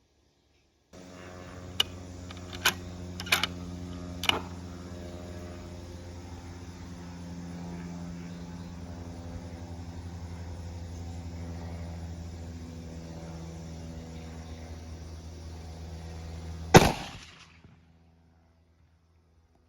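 A single shot from a custom 6.5 Creedmoor Savage Axis II rifle with a muzzle brake comes about 17 seconds in. It is very loud and sharp, with a short ring after it. A steady low hum runs underneath, and a few small sharp clicks come in the first few seconds.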